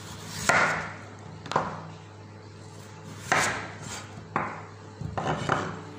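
Kitchen knife slicing through peeled raw potato and striking a wooden cutting board: about five strokes at uneven spacing, the last few coming closer together.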